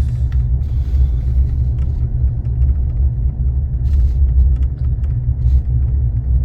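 Steady low rumble of a car's road and engine noise heard from inside the cabin while driving slowly on a snowy road, with a few faint ticks.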